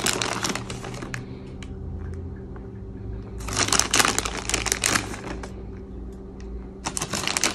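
Plastic bag of shredded cheese crinkling as it is tipped and shaken over the food, in three spells: at the start, around the middle, and near the end. A faint steady hum runs underneath.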